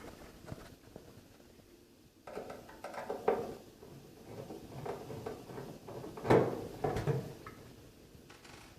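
Irregular knocks, scrapes and clicks of hand work on a microwave oven's sheet-metal cover while its screws are being undone.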